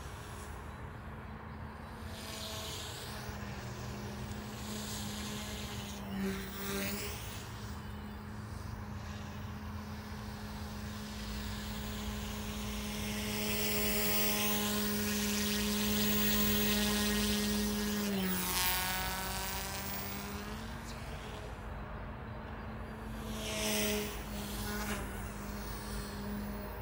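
OMPHobby M1 electric RC helicopter flying, its rotors and motor giving a steady buzzing hum. It grows louder as it comes close about halfway through, and its pitch dips briefly a little later before settling again.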